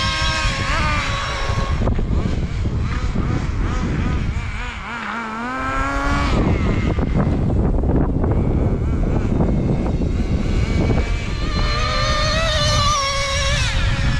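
Nitro RC truck's small two-stroke glow engine (Traxxas 3.3) at high revs. It drops to a low, slow-running pitch about four to five seconds in, then revs back up sharply and stays high, with the pitch wavering as the throttle changes.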